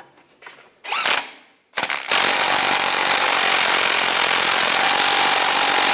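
Impact wrench running down the nut on a sway bar end link: a short burst about a second in, then a steady hammering run of about four seconds.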